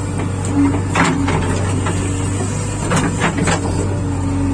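JCB 3DX backhoe loader's ecoMAX diesel engine running steadily, with a few sharp knocks and clatters of the machine at work, one about a second in and a cluster around three seconds in.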